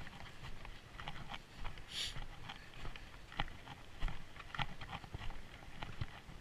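Walking footsteps crunching on a packed snowy trail, an irregular run of short crunches, with a brief hiss about two seconds in.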